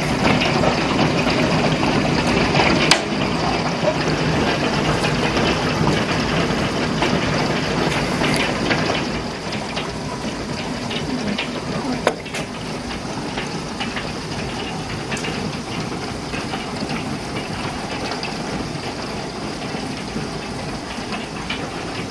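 Large hail and heavy rain pelting pavement and parked cars: a dense hiss filled with rapid clicks of hailstones striking, with a few louder single knocks. It eases somewhat about nine seconds in.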